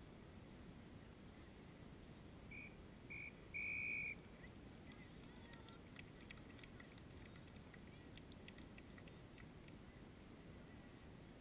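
A distant referee's whistle blows two short blasts and then one longer blast, each a single steady high note, about three seconds in, over faint wind and open-field hiss.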